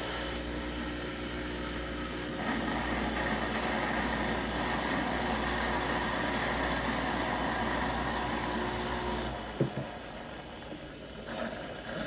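Breville espresso machine's pump humming steadily, joined about two seconds in by a rushing hiss of water or steam; it stops after about nine seconds, followed by a short knock.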